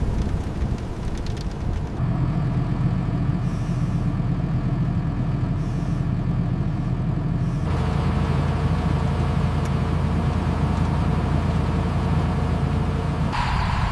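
Peterbilt truck's diesel engine idling, a steady low hum. Its sound changes abruptly about two seconds in, again midway and near the end.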